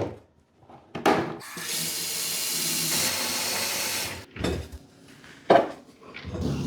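Vivenso water-filter vacuum cleaner running with a steady rushing hiss of air through its water bath for about three seconds, then stopping. A knock comes just before it starts, and a few sharp knocks follow after it stops.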